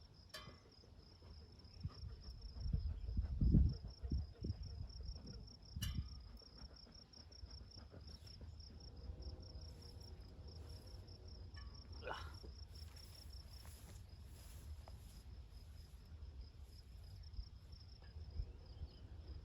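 Insects chirping in a steady, fast, high-pitched pulsing trill, faint, with occasional low rumbles underneath.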